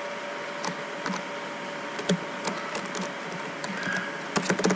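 Computer keyboard typing: irregular single keystroke clicks, with a quick run of keys near the end, over a faint steady hum.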